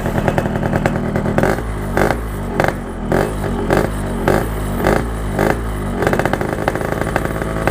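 Yamaha RX-King two-stroke single running through a Packing Power PK1 aftermarket exhaust: idling, then blipped in quick throttle revs about twice a second from about a second and a half in, settling back near the end. The exhaust note is soft and subdued, the muffled character of this quiet-type silencer.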